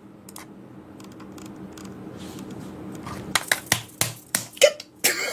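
Typing clicks like keys on a computer keyboard, irregular and getting louder in the second half, over a faint hiss that slowly swells.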